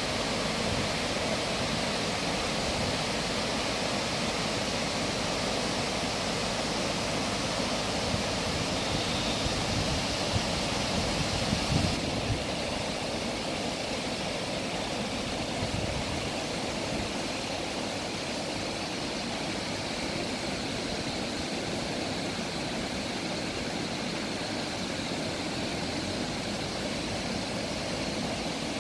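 Hraunfossar's many small waterfalls, spring water spilling out of lava rock into a glacial river, making a steady rushing of water. There are a few brief low bumps around ten seconds in.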